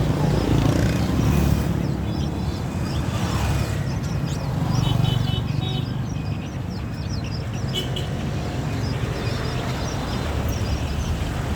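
Many small birds chirping in quick, overlapping high calls over a steady low rumble.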